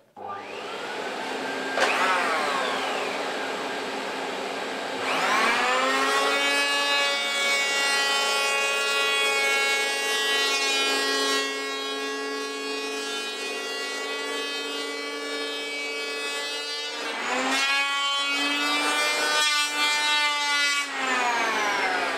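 Electric power planer with a dust-extraction hose whining as it shapes a foam kneeboard blank. The motor spins up to a higher pitch about five seconds in and runs steadily. Its pitch dips and recovers a few times near the end as the blade bites, then it starts to wind down.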